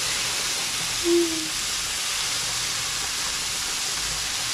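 Chopped leafy greens frying in a pan of hot oil, a steady sizzle. About a second in there is a brief low hum.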